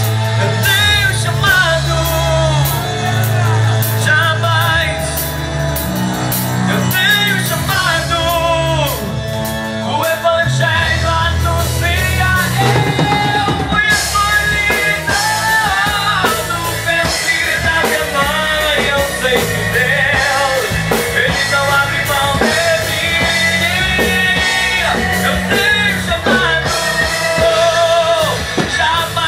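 Gospel rock band playing a song: a sung melody over bass, electric guitar and a drum kit, without a break.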